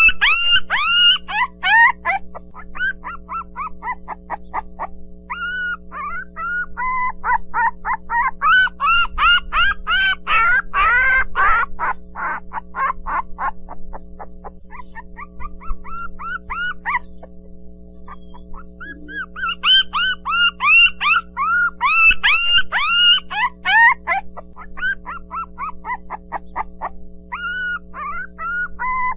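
A litter of puppies whining and yelping: many short, high, rising-and-falling calls overlapping, thinning out for a few seconds midway, then busy again. A steady low hum or drone runs beneath.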